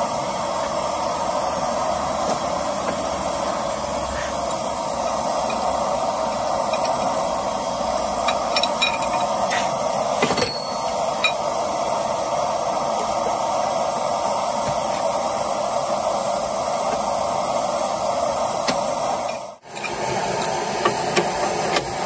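Gas forge burner running steadily, with a few light clinks of tongs and steel stock. The sound cuts out for an instant near the end.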